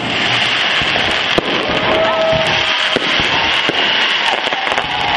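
Aerial fireworks show: dense, continuous crackling from bursting shells, with several sharp bangs from shells breaking overhead.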